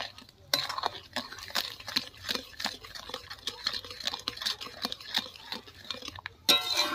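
A metal spatula stirring thick, hot tomato sauce in an aluminium wok, giving irregular clicks, taps and scrapes of metal on metal a few times a second. Near the end there is a louder ringing clink.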